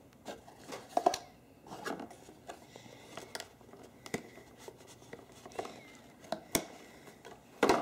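Hands working a small camera free of its box packaging: irregular plastic clicks and knocks with light rustling. The sharpest clicks come about a second in and near the end.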